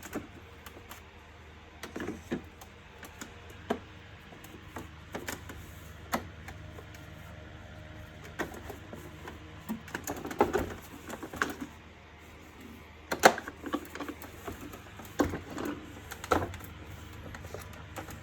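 Plastic housing parts of a wet & dry vacuum cleaner being handled and fitted together by hand: irregular clicks and knocks, with a cluster of them from about ten seconds in and the sharpest knock a little after the middle.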